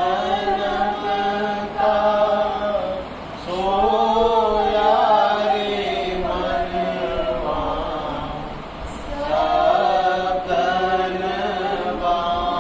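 A group of voices chanting a devotional chant together in unison, in long drawn-out phrases that rise and fall and repeat about every five to six seconds.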